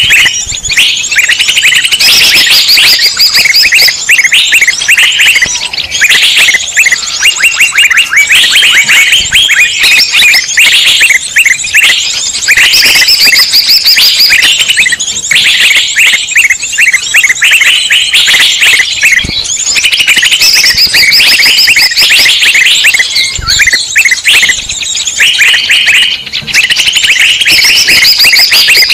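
Many small songbirds chirping, trilling and calling at once in a loud, dense, overlapping chorus: a mixed-species bird 'ruckus' recording of the kind played to lure wild birds.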